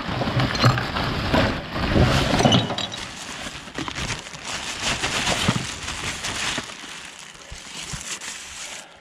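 Plastic rubbish sack and fabric rustling and crinkling as they are handled close to the microphone, busiest in the first few seconds and dying down toward the end.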